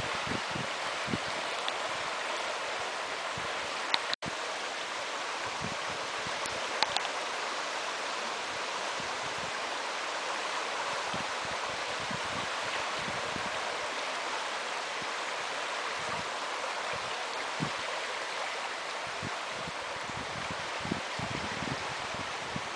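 River water flowing steadily, an even rushing noise, with occasional faint low thumps and a sudden brief dropout about four seconds in.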